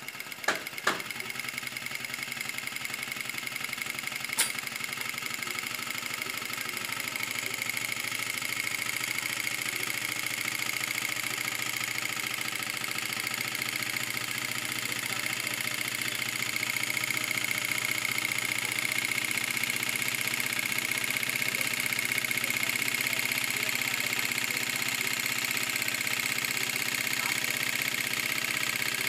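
German-made post-bed glove sewing machine running steadily, stitching a glove. Its motor and needle mechanism make a continuous high whine and hum, with a few sharp clicks in the first seconds.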